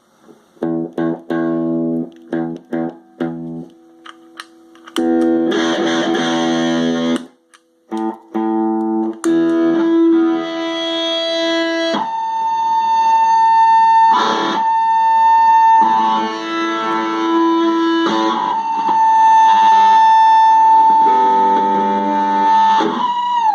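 Electric guitar played through a distortion effects pedal: short strummed chords, then held notes. From about halfway a steady high tone sits over the playing for about ten seconds, unchanged as the notes change, then bends down at the end; this is the pedal's weird noise, which the owner suspects comes from faulty electronics.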